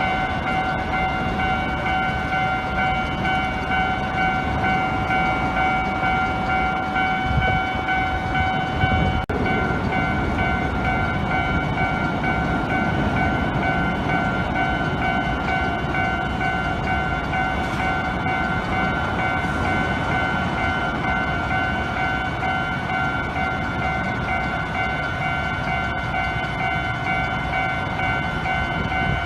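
Japanese level crossing warning bell ringing steadily with its 'kan-kan' tone while a train rumbles past over the crossing.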